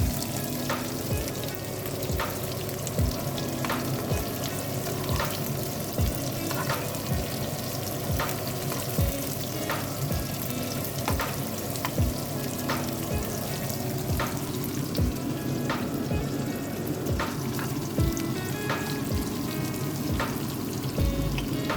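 Garlic and onion sizzling in hot oil in a small frying pan, with a spatula scraping and tapping the pan in a regular stirring rhythm, about one stroke a second.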